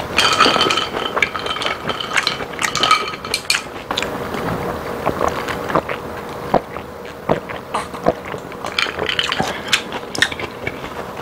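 Close-miked mouth sounds of chewing a big mouthful of spicy chicken feet and grilled intestine, wet smacks and clicks throughout. Partway through come gulps from an iced drink, and ice clinks in the glass as it is set down.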